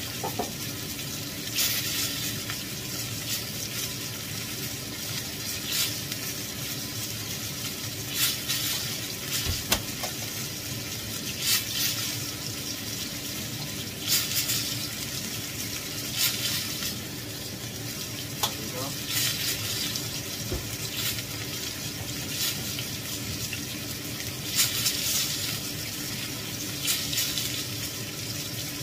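Wild boar meat frying in margarine in a cast-iron skillet: a steady sizzle, with louder crackles and spatters every few seconds.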